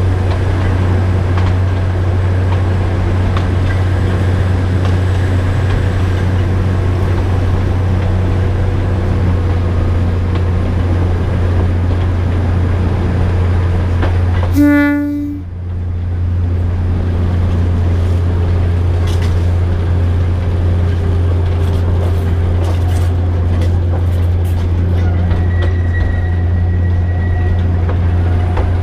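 A DL-41 diesel locomotive's engine running with a steady low drone as the train travels along the Alishan Forest Railway line. About halfway through, the horn sounds once briefly, and scattered clicks from the wheels on the track follow in the second half.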